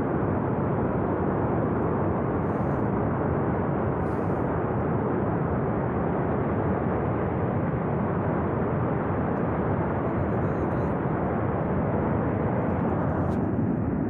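Steady, unbroken rushing noise of a glacier-burst flash flood of water, mud and debris surging down a mountain river gorge.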